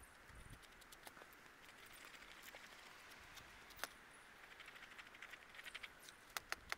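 Faint stirring of a thick flour-and-egg batter with a wooden spoon in a small non-stick pan: soft scraping with light clicks of the spoon against the pan, coming quicker towards the end.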